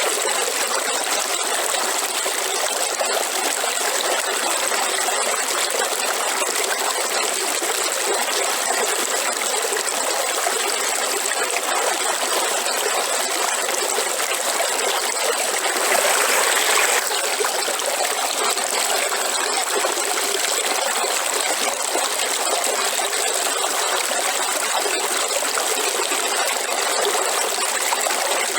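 River water flowing steadily, with a steady high tone above it. About halfway through the flow briefly swells louder for about a second.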